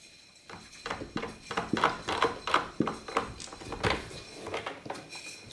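A cat pawing and pulling at a wooden door to open it, the door rattling and knocking against its frame in a run of irregular knocks, loudest in the middle and again near four seconds.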